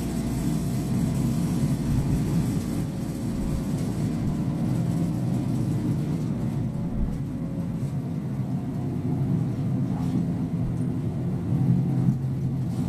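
Hino Poncho small bus running along the road, heard inside the cabin: a steady diesel engine hum with road rumble.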